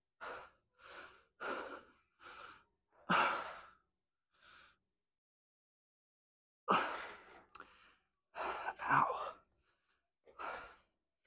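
A man breathing hard through his mouth while flexing: a run of short, noisy exhales, roughly one every half second to a second, breaking off for about two seconds midway.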